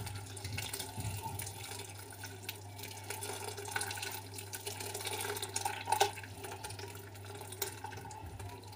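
Hot water poured in a steady stream from a stainless steel kettle into a glass bowl of purple basil leaves, splashing and filling the bowl, over a steady low hum.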